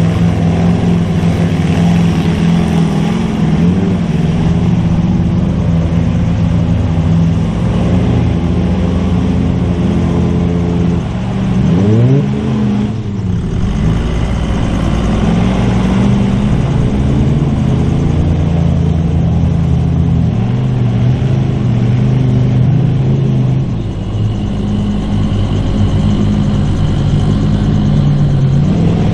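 Mega truck's engine running hard under load as it churns through deep mud. It revs up sharply about twelve seconds in, and the engine note keeps rising and falling after that.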